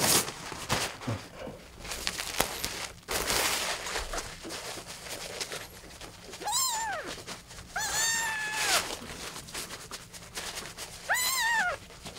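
Three-week-old kitten meowing three times, short high cries that rise and fall, the middle one the longest, while it is being wiped with a tissue to make it relieve itself; this kitten cries while pooping. Rustling and handling noise in the first few seconds.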